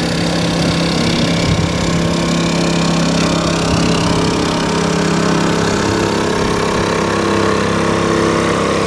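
Portable generator running steadily on a moored narrowboat, a constant droning engine note. It is the kind of noisy generator that disturbs nearby boaters and houses.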